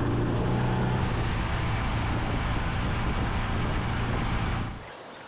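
Boat's outboard motor running at speed, with wind on the microphone and water rushing past the hull. The engine hum is clearest early on, and the whole sound drops away abruptly just before the end, leaving a softer wash of water.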